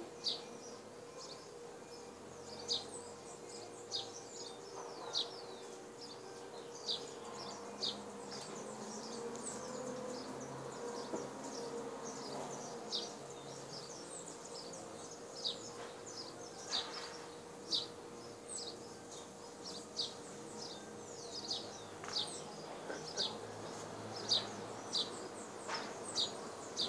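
Birds chirping: short, high, falling notes repeating about once a second, over a faint steady hum.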